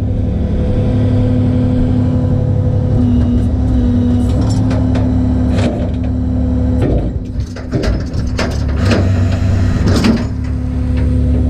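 Tow truck's engine running steadily, with a run of short knocks and rattles about halfway through.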